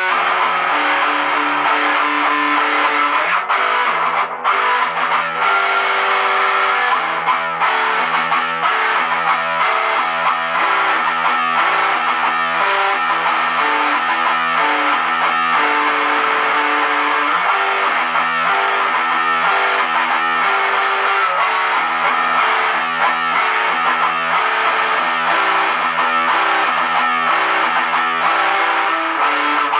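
Jackson electric guitar played through distortion: a steady melodic line of single notes that change every half second or so.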